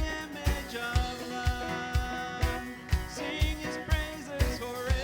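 Worship band playing a contemporary worship song, with guitar and a steady kick-drum beat about two hits a second.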